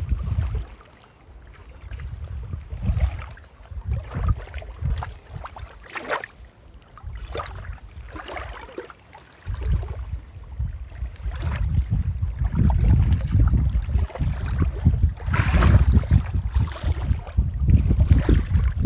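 Wind buffeting the microphone in uneven gusts, a low rumble that grows heavier and more constant about halfway through.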